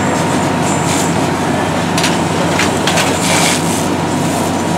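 Fire engine's engine and pump running steadily while a hose stream sprays water onto smouldering rubbish, with a steady hiss of water and steam and a few sharp cracks near the middle.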